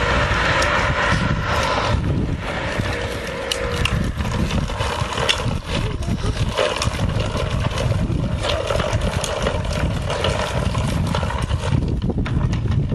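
Plastic wheels of a small child's ride-on bike rolling and rattling over concrete paving blocks: a steady rough noise dotted with many small clicks.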